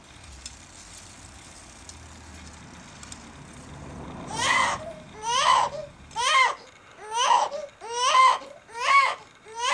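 A faint steady rumble, then from about four seconds in a run of loud, evenly spaced wailing cries, each falling in pitch, roughly one every 0.7 seconds.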